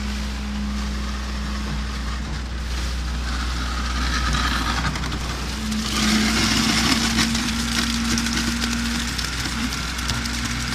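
Diesel engine of a mobile concrete mixer pump running steadily with a low hum, joined about six seconds in by a louder, rough grinding noise from the machine.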